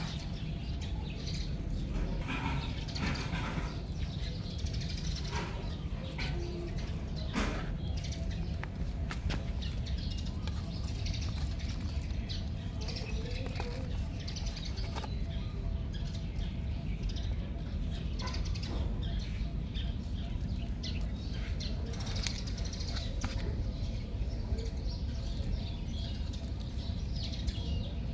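Outdoor ambience: small birds chirping now and then over a steady low rumble, with scattered short rustles and clicks.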